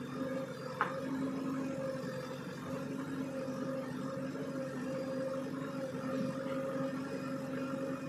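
Diesel engine running steadily at a constant pitch, with a single sharp click about a second in.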